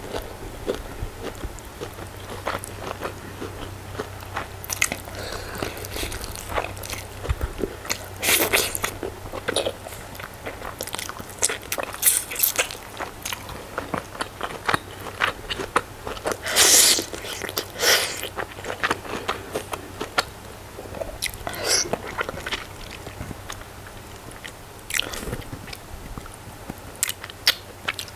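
Close-miked mouth sounds of a person chewing a mouthful of rice and goat meat: irregular clicks and smacks, with a few louder bursts.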